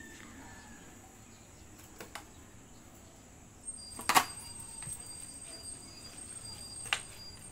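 A Belgian Malinois snapping at and biting a plastic bottle dangling on a string: a few sharp clicks and crackles, a pair about two seconds in, the loudest cluster about four seconds in as its jaws close on the bottle, and one more near the end. A faint steady high whine runs underneath.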